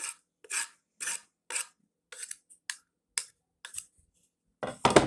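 Chopped ginger being scraped off a board into a pot with a kitchen utensil: a run of short scrapes about two a second, softer and sparser in the middle, with a louder scrape near the end.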